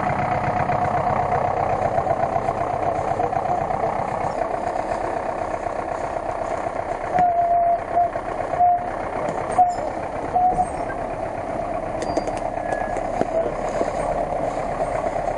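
GAZ-66 army truck's V8 petrol engine running steadily as the truck drives over rough ground, with a few short brief changes in its note near the middle.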